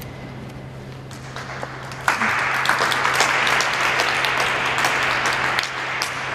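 Audience applauding, starting about a second and a half in, swelling to full strength and then dying away near the end.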